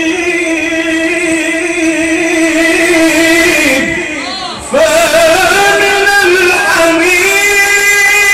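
A male qari reciting the Quran in a melodic, drawn-out style, amplified through a microphone, holding long ornamented notes. About four seconds in the voice drops and softens briefly with a falling glide, then comes back strong on a new held note.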